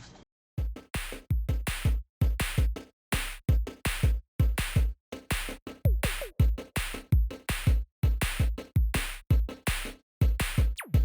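Background electronic music with a punchy drum-machine beat and deep bass hits, cutting to silence for brief moments between phrases.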